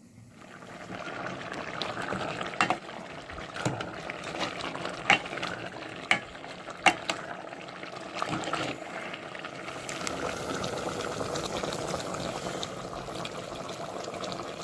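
Food cooking in a pan, a steady sizzling, bubbling hiss that starts abruptly and builds over about a second. A few sharp clinks of a utensil against the pan come in the first half.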